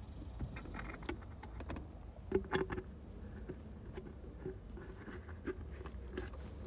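Light metallic clicks and taps of hand tools on bolts, as the belt tensioner bracket's bolts are fitted. There is a short cluster of clicks about two seconds in, then a run of single clicks about two a second.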